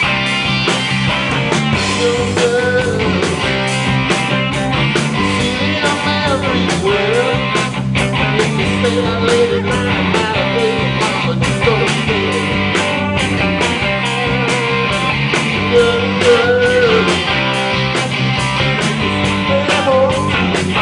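Live rock band playing with electric guitars, bass guitar and a drum kit, the drums keeping a steady beat under the guitars.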